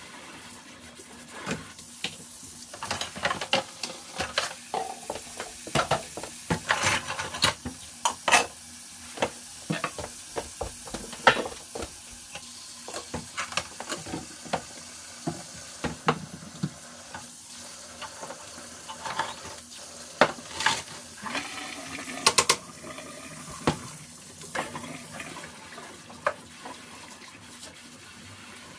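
Dishes and utensils clinking and knocking over and over, over a steady hiss.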